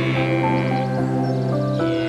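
Background music with sustained held notes and a few short higher notes.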